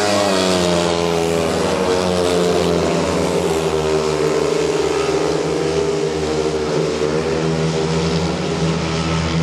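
Speedway motorcycles' 500 cc single-cylinder methanol engines racing round the track. Their pitch falls early on and rises again as the riders power through the bend and onto the straight.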